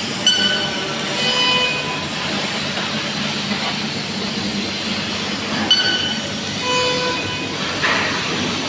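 Senfeng 20 kW fiber laser cutting machine running on metal: a steady hiss over a constant low hum, with short high-pitched whines in two bursts, near the start and again about six seconds in.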